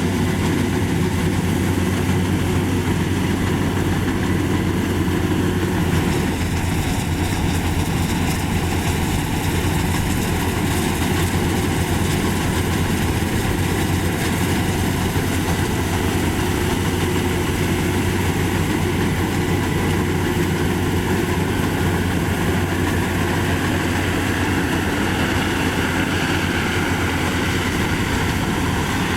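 Maxxi Bimo 102 rice combine harvester running steadily with a continuous engine drone and the noise of its working machinery.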